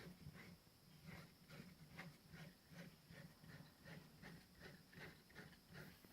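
Homemade CNC machine's Z axis drive running, heard faintly as an even ticking about two to three times a second, each tick paired with a pulse of low hum.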